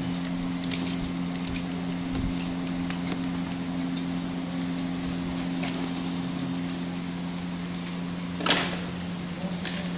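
Clear plastic wrapping on a cardboard parcel being slit with a small cutter and torn open: light scratching clicks in the first few seconds, then a sharp crackle of tearing plastic about eight and a half seconds in, with a steady low hum underneath.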